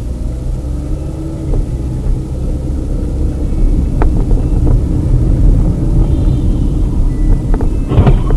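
A car's road and engine noise heard from inside the cabin through a dashcam: a steady low rumble with a few light clicks and rattles, growing louder in the second half.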